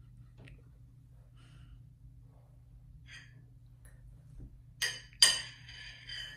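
A fork clinking against a plate twice in quick succession, each strike ringing on briefly.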